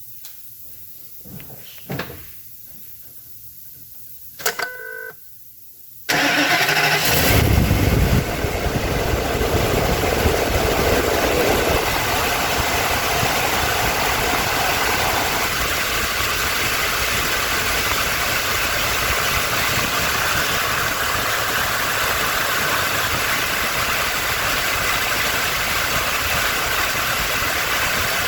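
The 2005 Ford F250's 6.8-litre Triton V10 cranks and fires about six seconds in, then idles steadily with one ignition coil unplugged for a noid light test. Before it, a few clicks and a brief tone.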